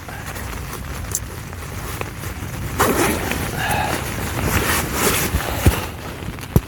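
Wind buffeting the microphone, with rustling of camping gear being handled and two sharp knocks near the end.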